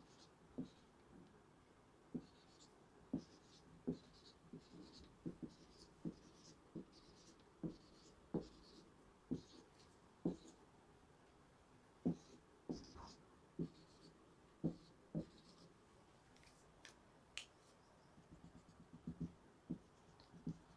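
Marker pen drawing on a whiteboard: faint short taps and squeaks as small triangles and circles are marked one after another, about one a second. Near the end comes a run of quicker light ticks as dashed lines are drawn between them.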